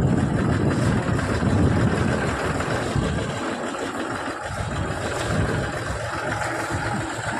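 Diesel farm tractor engine running steadily as it tows a trailer loaded with cut grass fodder.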